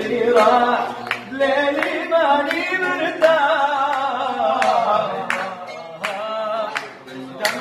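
A man singing an Arabic song in a long, wavering held line, without clear words, with sharp percussive hits marking the beat now and then.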